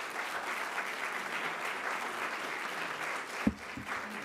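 Audience applauding steadily, with a single thump about three and a half seconds in.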